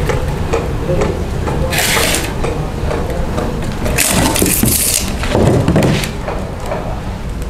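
Hand-tool handling noise on a foil-faced polyurethane duct panel: two short scraping rustles, from the tape measure and marker on the aluminium foil, then a duller scrape about five and a half seconds in as an aluminium straightedge profile is laid on the panel, all over a steady low rumble.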